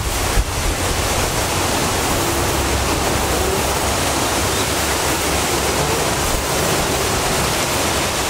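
Steady wind blowing across the microphone: a continuous rushing hiss with a low rumble underneath.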